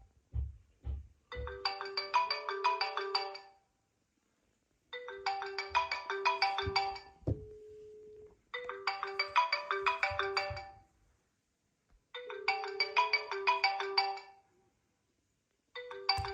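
Smartphone ringtone playing a short melodic phrase four times, each about two seconds long with a pause between, after a few low thumps at the start.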